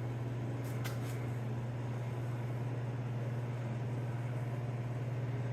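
Steady low mechanical hum with an even hiss, like a running fan or motor in the shop, with a couple of faint ticks about a second in.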